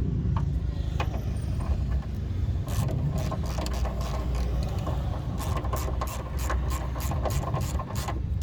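Hands-on work at the van: a run of short, irregular mechanical clicks and rattles over a steady low rumble, the clicks coming thick and fast from about three seconds in.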